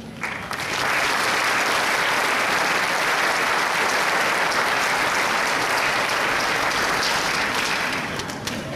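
Large audience applauding, swelling up within the first second, holding steady, then fading near the end.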